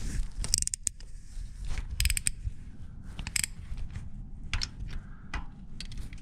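Scattered sharp metallic clicks and clinks of hand tools and rocker arms as the rockers are taken off a small-block Ford V8's cylinder heads.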